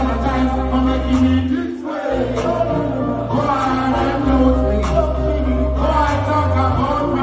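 Live reggae-dancehall music over a concert sound system: a heavy bass line under singing voices. The bass drops out briefly about two seconds in, then comes back.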